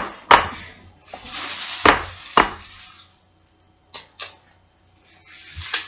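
An egg being knocked against a ceramic bowl to crack it: three sharp knocks in the first two and a half seconds. About four seconds in, two faint clicks follow as the shell is pulled open.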